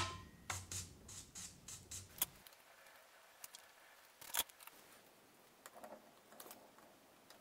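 Faint clicks and taps of hand tools on a circuit board at an electronics bench: a soldering iron working a wire off the board and multimeter probes being set on the solder pads. A run of soft ticks about three a second comes first, with sharper single clicks about two and four seconds in.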